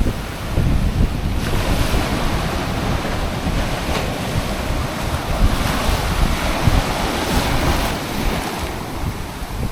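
Pacific Ocean surf breaking and washing up the beach, with wind buffeting the microphone as a low rumble. One wave's wash swells about a second and a half in and fades near the end.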